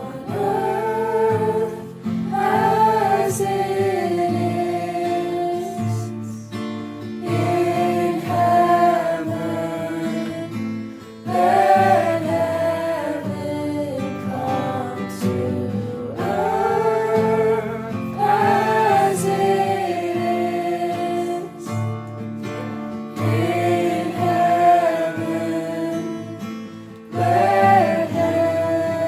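Music: a worship song, with a voice singing phrases a few seconds long over guitar accompaniment.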